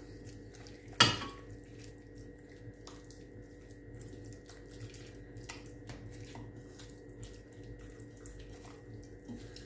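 Hands mixing fish pieces through an oily chermoula spice marinade in a stainless steel bowl: soft wet squelching and small scattered clicks, with one sharp knock about a second in.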